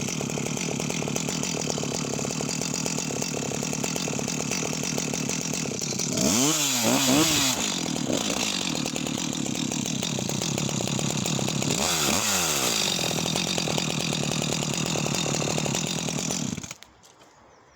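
Jonsered 2054 Turbo two-stroke chainsaw running steadily while cutting through knotty wood. Its revs swing up and down twice along the way, and the engine cuts off suddenly near the end.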